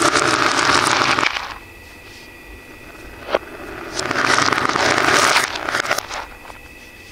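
Acrylic beads clattering against each other and a wooden bowl in two pours, played in reverse. A dense rattle builds and cuts off abruptly about a second in. After a single click, a second rattle runs from about four seconds to five and a half and ends in a few scattered clicks.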